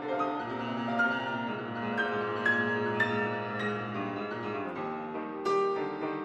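Background music: a classical-style keyboard piece, notes played one after another in a flowing melody.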